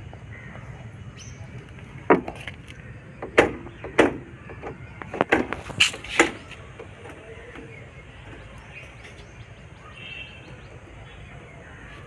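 Several short, sharp clicks and knocks in quick succession, most of them between about two and six and a half seconds in, from tools and parts being handled while a motorcycle clutch cable is fitted. A low, steady hum runs underneath.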